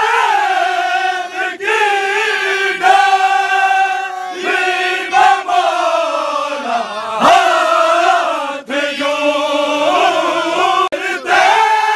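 A group of men chanting a noha, a Shia lament, loudly and together. The long held lines bend in pitch and break off briefly every second or two.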